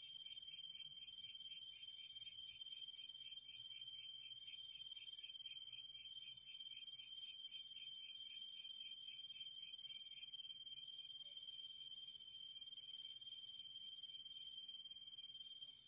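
A chorus of night insects: several high-pitched trills at different pitches, some pulsing rapidly and evenly. One of the pulsing trills stops about two-thirds of the way through.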